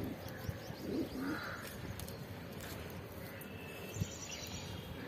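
Domestic pigeons cooing softly in a loft, with a single sharp click about four seconds in.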